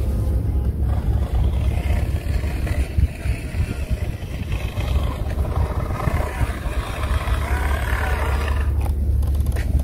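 Wind buffeting the microphone: a steady low rumble, with a fainter hiss above it in the second half.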